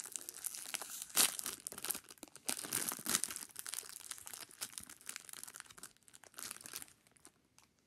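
Clear plastic snack-cake wrapper crinkling as it is torn open and peeled back by hand, with a sharp crackle about a second in; the crinkling dies away near the end.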